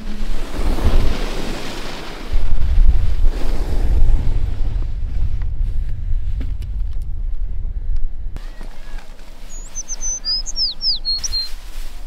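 Loud wind buffeting the microphone, with a heavy low rumble, for about eight seconds. It cuts off abruptly, and then a bird chirps a quick run of high, falling notes.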